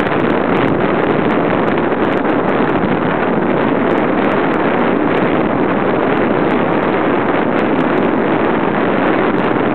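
Summer toboggan sled rolling fast along its metal track, a steady loud rushing rumble with light rattles, mixed with wind buffeting the microphone.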